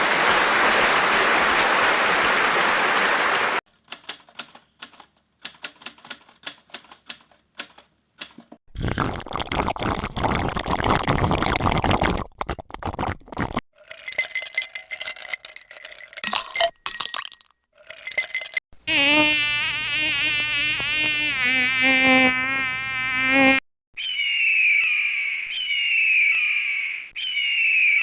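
A string of separate sound effects one after another: a band of hiss first, then scattered clicks, another burst of noise, a warbling tone, and finally chirps that fall in pitch, repeating about once a second.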